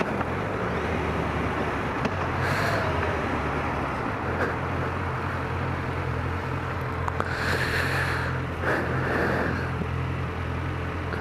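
Suzuki GSX650F motorcycle's inline-four engine running steadily under way, under an even rush of noise, with a couple of brief louder swells.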